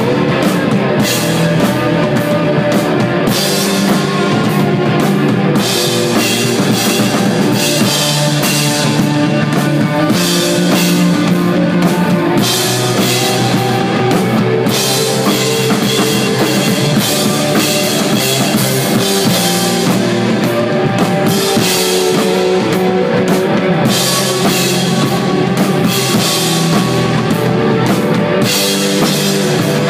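A rock band playing live, desert/stoner rock on drum kit, electric guitar and bass, with cymbals crashing at intervals over a steady groove.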